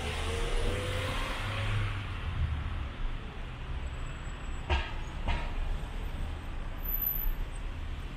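Road traffic: car engines running in slow, congested traffic, with a vehicle accelerating in a faint rising pitch near the start. Two sharp knocks about halfway through.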